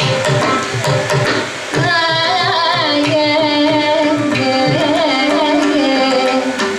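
Carnatic classical music: a woman singing with gliding ornaments, doubled by a violin, over a steady electronic tanpura drone. A mridangam plays a dense run of strokes in the first two seconds, then keeps a lighter beat.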